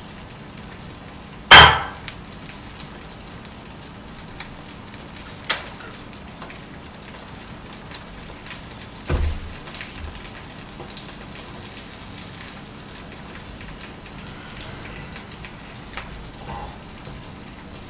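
Green onion pancake batter and egg sizzling steadily in a frying pan. A sharp knock of a dish or utensil about a second and a half in is the loudest sound, with a lighter click about five seconds in and a dull thump about nine seconds in.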